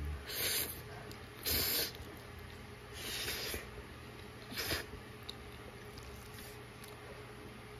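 A person eating spicy jjolbokki noodles with chopsticks: short airy mouth noises, four of them about a second and a half apart, over a faint steady hum.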